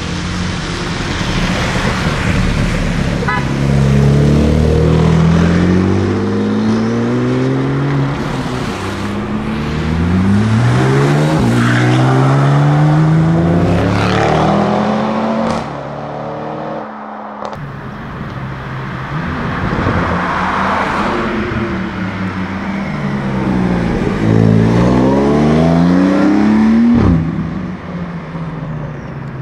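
Porsche 992 Turbo S twin-turbo flat-six with an Akrapovic titanium exhaust, accelerating hard several times. Each run climbs in pitch and drops back at quick upshifts.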